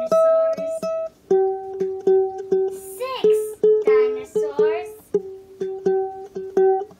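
Background music: a plucked-string tune over held melody notes, with two sliding pitched swoops about three and four seconds in.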